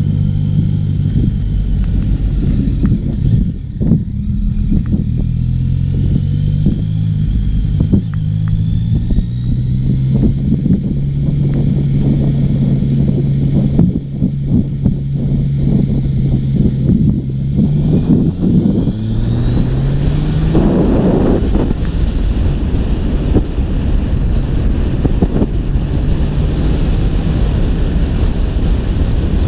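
Yamaha XSR900's inline three-cylinder engine pulling steadily at low revs while riding, then revving hard as the bike accelerates, its pitch climbing steeply about two-thirds of the way through. After that, wind rushing over the microphone grows loud alongside the high-revving engine as speed rises.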